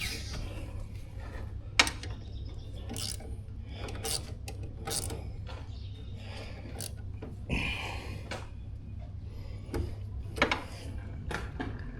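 Hand tools working on metal tractor parts while a pedal is fitted: scattered clicks and knocks with ratchet-like mechanical sounds, a sharp knock about 2 s in and another near 10.5 s, and a short scrape about 7.5 s in.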